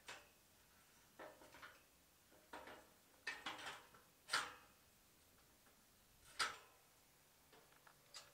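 A handful of scattered knocks and clanks from a metal scaffold tower being climbed, the loudest about four seconds in and another about two seconds later.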